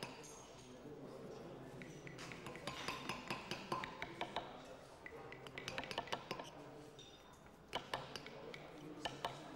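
Small hammers striking carving chisels into stone slabs: irregular sharp taps and clinks from several carvers, in quick runs and then single strikes, over a low murmur of voices.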